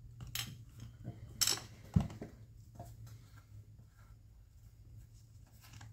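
Small handling clicks and knocks as a top-handle chainsaw's plastic housing is turned over and a screwdriver works at its muffler cover: a sharp click about a second and a half in and a dull knock at about two seconds, with fainter taps between, over a faint steady hum.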